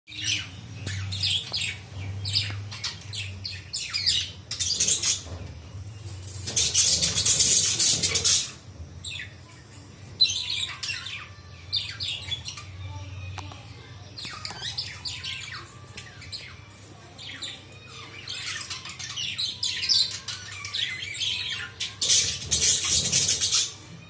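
A small flock of budgerigars chattering in a cage: a steady run of quick, high warbling chirps and squawks, rising into louder, denser bursts of chatter about seven seconds in and again near the end.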